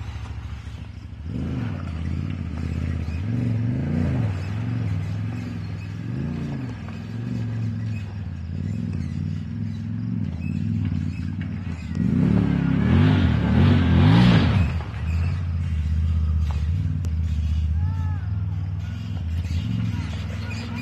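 Can-Am Maverick XXC side-by-side's engine revving up and down as the vehicle crawls through a rocky creek crossing. The pitch climbs and drops in repeated throttle blips, with a louder, harder burst of throttle about twelve seconds in.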